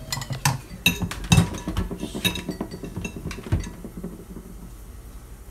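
Kitchen utensils clinking and tapping against a glass mixing bowl, about eight irregular sharp knocks over the first three and a half seconds, then quieter.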